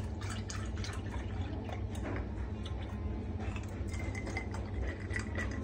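Milk poured from a carton over ice in glasses of iced coffee, with ice cubes and glass clinking and tapping, then poured into a ceramic mug in the last part, over a steady low hum.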